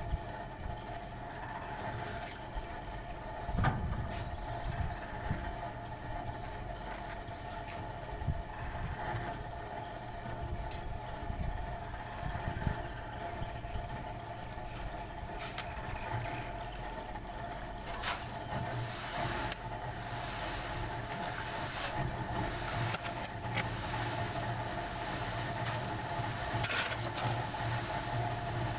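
A machine motor running steadily with a constant hum, with scattered clicks and knocks over it.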